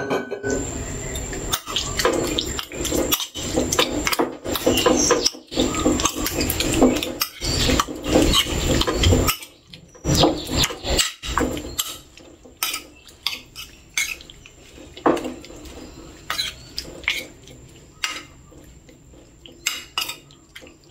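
Metal spoon clinking and scraping on a ceramic plate, mixing sliced pork in a wet marinade. The sound is busy and continuous for about the first nine seconds, then thins to scattered separate clinks.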